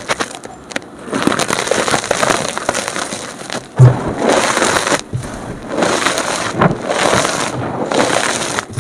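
Blocks of gym chalk crunching and crumbling as they are squeezed apart, a dense run of crackles in several spells, in sped-up playback. A low thump comes a little under four seconds in.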